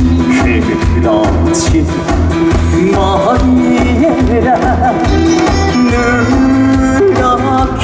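Live trot band music: an instrumental passage with a steady, evenly repeating drum beat and a wavering lead melody over it.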